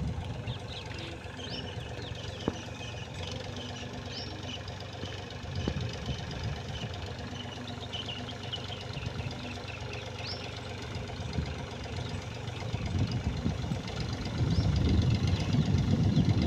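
Mahindra 265 tractor's three-cylinder diesel engine running steadily while it powers a rear-mounted spray pump, growing louder over the last few seconds.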